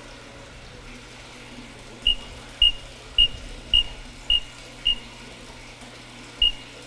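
Hoot aerobic treatment system control panel beeping out its mode 3 reading: six short high beeps about half a second apart, a pause, then the first beep of the next group near the end. The beeps count out the aeration blower's back pressure in water column inches, six for the tens digit. The full reading is 65 inches, within the normal range.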